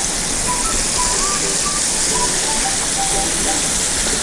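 Battered tuna pieces deep-frying in hot oil in a pan: a steady sizzle, the pieces nearly golden brown.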